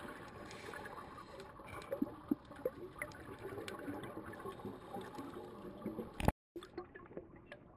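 Muffled underwater sound through a camera housing: a scuba diver's exhaled bubbles gurgling, with scattered clicks. A sharp click about six seconds in, then the sound cuts out briefly.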